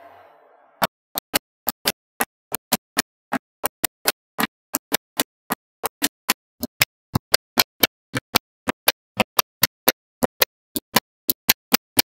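Magnetic balls clicking as they snap into place, one sharp click after another at about three or four a second, starting about a second in.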